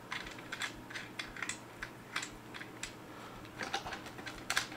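Stihl 500i chainsaw's captive bar nuts being spun loose by hand on the bar cover: scattered small clicks and ticks, coming thicker and louder near the end.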